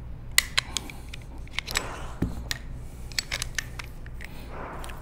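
Clicks and light scrapes of the Laugo Alien pistol's removable top rail being pushed out, slid off and swapped by hand, in a quick string of separate snaps and knocks.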